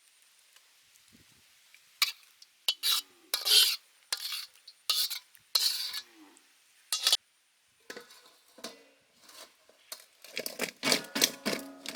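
A utensil scraping and clinking against metal cookware in a series of short stirring strokes, mixing the chicken feet with seasoning. Music with a plucked beat comes in near the end.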